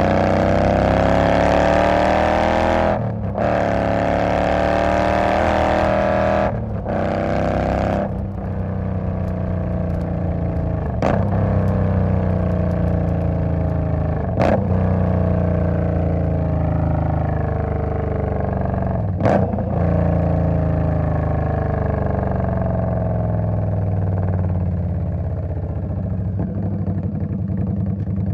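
2020 Indian Scout V-twin motorcycle under way, its engine revving up and breaking off briefly about 3 and 7 seconds in as it shifts up, then running on with a few sharp clicks and its pitch slowly falling as it slows.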